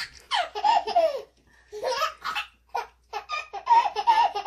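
A baby laughing in several high-pitched bursts with short breaks between them, delighted by soap bubbles being blown.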